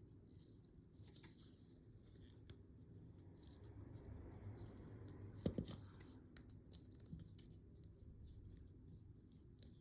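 Faint handling of a disassembled padlock's small metal parts: scattered light clicks and taps, with a short louder cluster of knocks about five and a half seconds in.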